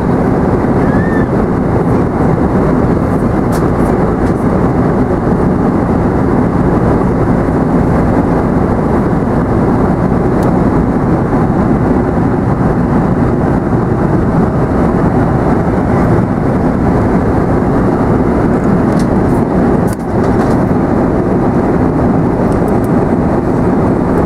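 Steady cabin noise inside a Boeing 747-400 airliner: an even, unbroken rush heaviest in the low end, with a few faint ticks.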